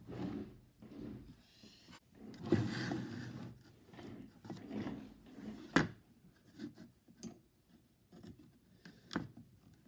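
A flathead screwdriver working at parts of a speaker system during disassembly: irregular scraping, rubbing and handling noises, with a sharp click a little past halfway and another near the end.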